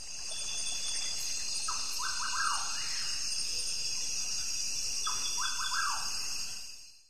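Frog calling twice, each call a quick run of rising chirps ending in a falling note, over a steady high-pitched background chorus.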